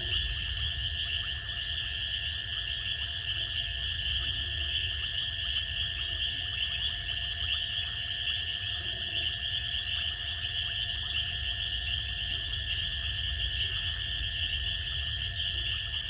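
Steady night chorus of crickets and frogs: a dense, continuous high trill is loudest, with several fainter steady trills above and below it, over a low rumble.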